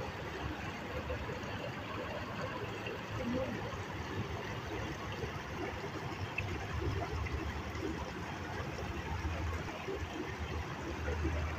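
Rows of small fountain jets splashing steadily into a shallow pool, a continuous watery hiss with a low rumble beneath it and faint voices.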